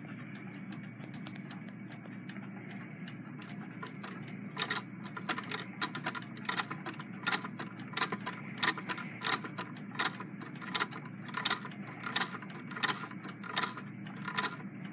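Singer 66 lock-stitch sewing machine stitching slowly, a sharp mechanical click with each stitch, about one to two a second, starting about four seconds in over a faint steady hum.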